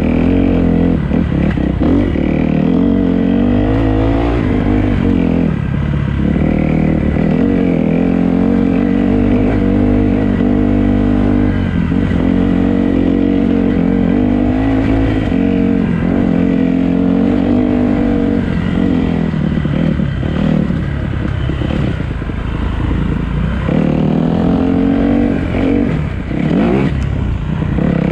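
Dirt bike engine under way on a rough trail, its pitch rising and falling as the throttle is opened and shut, easing off briefly several times, with rattling from the bike over the bumps.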